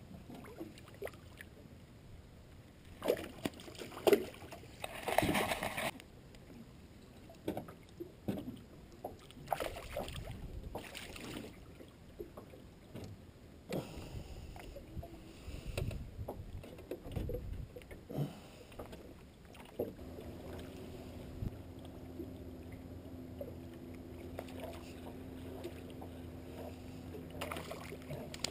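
Scattered knocks and clatters of handling in an aluminum boat while a small fish is played near the hull, with a short burst of noise about five seconds in. About two-thirds of the way through, a steady low hum joins and continues.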